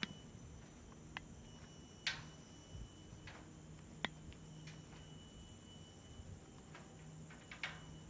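Faint outdoor ambience with a handful of sharp clicks and taps a second or more apart, the loudest about two seconds in, over a faint high steady tone that comes and goes.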